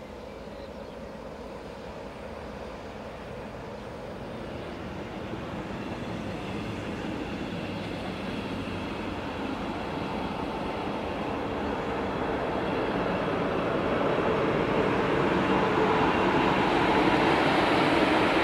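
Hector Rail diesel locomotive's engine throttling up, growing steadily louder.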